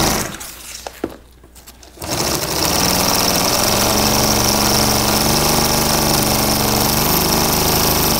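Industrial sewing machine stitching a zipper onto heavy boat canvas. It stops briefly, with a click or two, and starts again about two seconds in, then runs steadily.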